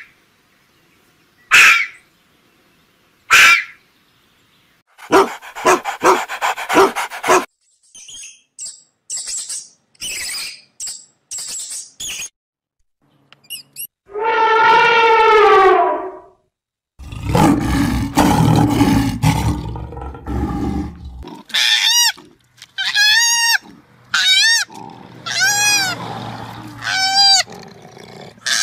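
A series of different animal calls one after another, changing every few seconds. Near the end comes a run of short calls, each rising and falling in pitch.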